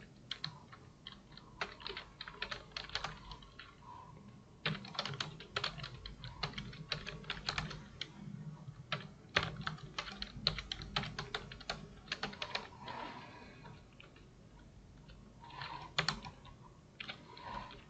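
Typing on a computer keyboard: irregular runs of keystroke clicks with short pauses, going quiet for a couple of seconds about two-thirds of the way through.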